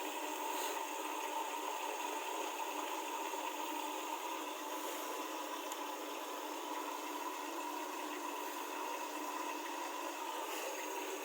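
Bosch WLP20265OE front-loading washing machine running at the start of a wash cycle: a steady hum over an even hiss.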